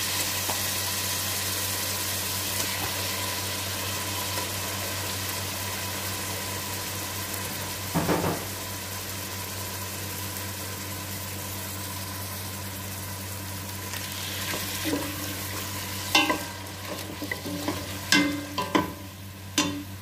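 Raw chicken pieces sizzling in hot oil with onions and garlic in a stainless steel pot, with a short louder burst about eight seconds in as more pieces go in. In the last few seconds a wooden fork knocks and scrapes against the pot as the chicken is stirred.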